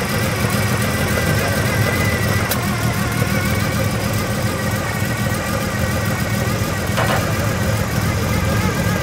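Nissan S20 2.0-litre twin-cam straight-six in a fully tuned Hakosuka Skyline GT-R, breathing through triple carburettors with open intake funnels, idling steadily and quietly.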